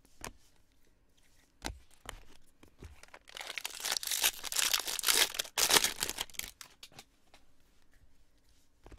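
Foil wrapper of a 2019 Bowman Jumbo pack of baseball cards being torn open, a loud crinkly tearing lasting about three seconds in the middle. A few light clicks of cards being handled come before it.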